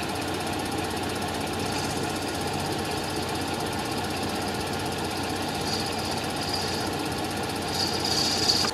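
Hardinge toolroom lathe running with a steady hum while a facing tool cuts across the end of a lubricated aluminum part. A higher hiss from the cut comes and goes, loudest near the end.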